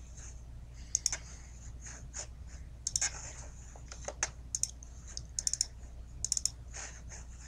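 Computer mouse clicking, mostly in quick pairs and triples like double-clicks, about once a second, over a faint low hum.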